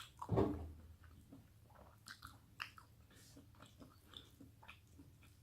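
A person chewing food close to the microphone: small irregular mouth clicks and soft chewing sounds, with one short louder sound about half a second in.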